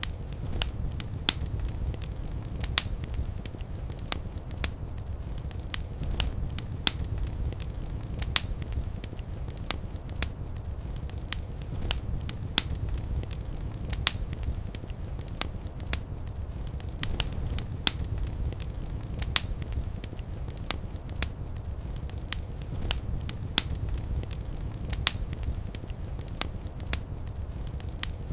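Fire burning in a fireplace: irregular sharp crackles and pops over a steady low rumble of the flames.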